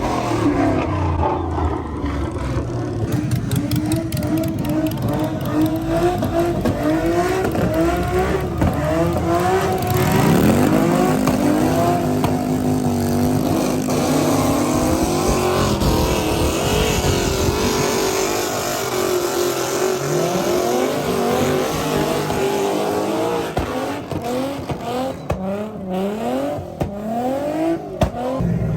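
Car engines revving hard over and over, their pitch repeatedly climbing and dropping. About ten seconds in, one engine is held at a steady high pitch for around four seconds, and quick rev blips come thick near the end.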